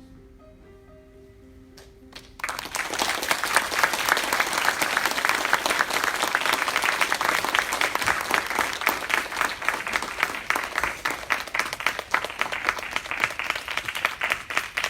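Soft instrumental music with a few held notes, then about two and a half seconds in an audience starts clapping, and the applause keeps going steadily.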